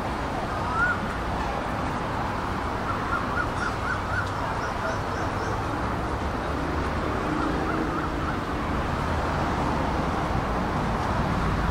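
A bird calling in quick runs of short chirps, five in a row about three seconds in and three more later, over a steady low hum of city traffic.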